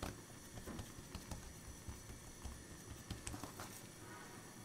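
Faint, irregular soft taps and thuds of hands pressing and patting soft dough rolls on a wooden board and picking them up.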